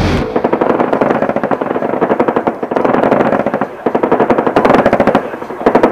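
Rapid automatic gunfire in long bursts of about a dozen shots a second, broken by two short pauses.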